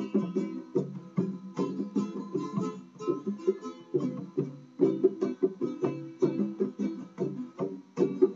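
Plucked string instrument of the guitar family, played as a steady run of quick picked notes and strums.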